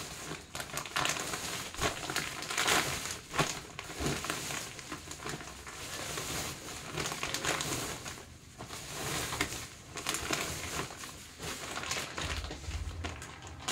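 Plastic packaging crinkling and rustling irregularly as it is handled, with a few low thumps near the end.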